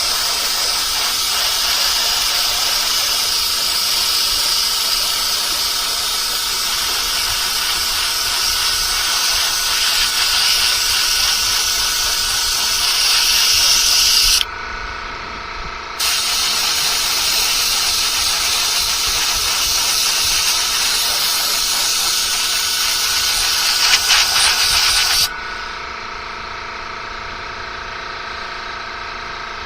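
Airbrush spraying paint with a steady hiss. The hiss cuts off briefly about halfway through and again for several seconds near the end as the trigger is released. A faint steady machine hum continues underneath.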